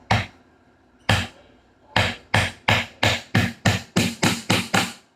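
Hammer driving a nail through a wooden seed platform into a 2x4: two spaced taps, then a quick steady run of about ten strikes, about three a second.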